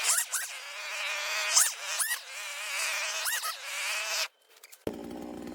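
A high, wavering buzz swells and fades in cycles of a second or two, with short rising chirps. It breaks off suddenly about four seconds in. Near the end a chainsaw starts running at idle.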